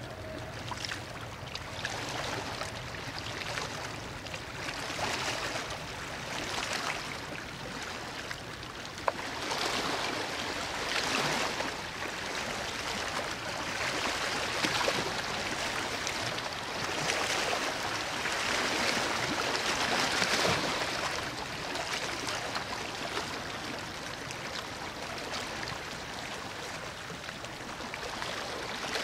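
River water washing against the stones of the riverbank, a rushing sound that swells and fades every few seconds, with a couple of small clicks.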